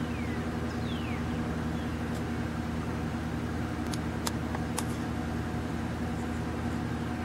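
A steady low mechanical hum, engine-like, with two short falling whistles in the first second and a few sharp clicks about four seconds in.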